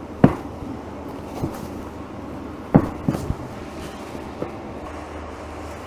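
Sharp pops and knocks from a chiropractic spinal adjustment: one loud pop about a quarter second in, a cluster of three near the three-second mark, and two fainter ones between, over a steady low hum.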